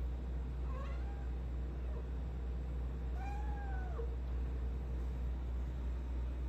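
A domestic cat meowing twice: a short, faint meow about a second in, then a longer one that rises and falls about three seconds in, over a steady low hum.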